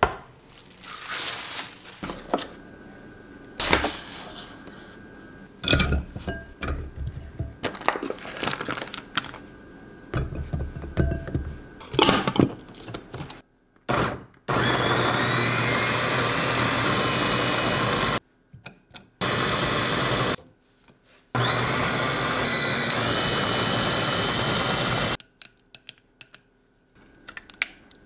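Electric food chopper chopping button mushrooms, its motor whirring in three bursts of a few seconds each, the whine rising as it spins up each time. Before that, knocks and scraping as a metal bench scraper gathers pastry dough on a silicone mat.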